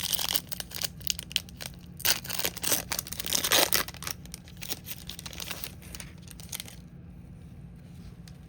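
A foil trading-card pack wrapper being torn open and crinkled, in a run of crackling that is loudest around the middle and stops about two-thirds of the way through.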